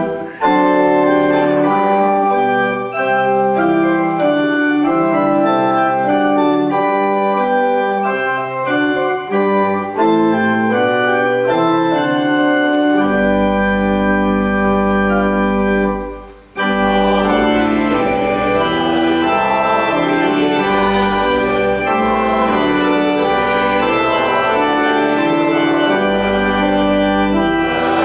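Church organ playing a hymn tune in sustained chords, with deep pedal bass notes coming in partway through. It breaks off briefly about sixteen seconds in, then carries on.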